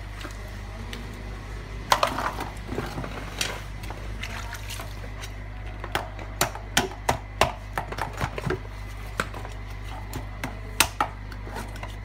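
Cleaver cutting and prying apart a horseshoe crab's hard shell: scattered sharp knocks and cracks, one about two seconds in, then a quick run of them in the second half. A steady low hum runs underneath.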